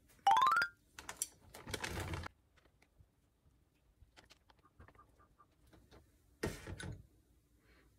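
Plastic zipper bag rustling and crinkling, with small clicks of wooden chopsticks on a small glass bowl in the middle, as marinated tomatoes are lifted out. A short, loud rising squeak comes near the start.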